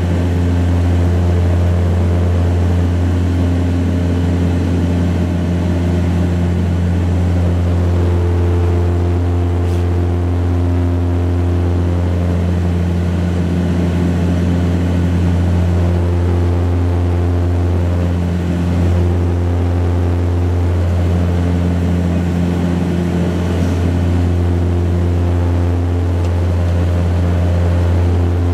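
Cabin drone of the Embraer EMB-120 Brasilia's twin turboprops at climb power: a steady low propeller hum with overtones that swell and fade every few seconds, heard from a seat beside the engine.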